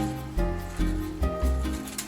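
Background music: held notes over a bass line, with a new note starting about every half second.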